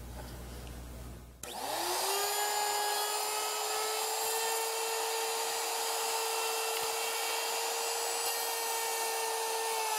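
Porter-Cable electric router switched on about a second and a half in: the motor spins up with a quick rising whine, then runs steadily at full speed.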